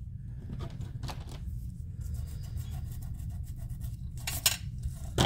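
Light taps and small clicks of craft tools and paper being handled on a tabletop during paper piecing, the sharpest click about four and a half seconds in, over a steady low hum.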